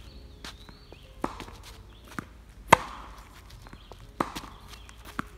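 Tennis rally: a tennis ball is struck back and forth by racquets and bounces on the hard court, a sharp hit every second and a half or so. The loudest crack comes just under three seconds in.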